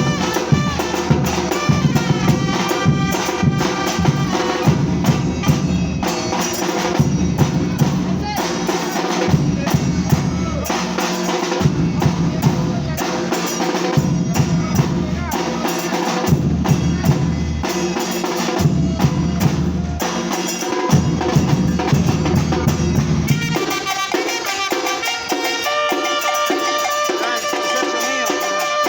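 Percussion band playing a drum groove, deep bass drums, snares and rim hits together. About three-quarters of the way through, the bass drums drop out and the music carries on with held, higher-pitched notes over lighter percussion.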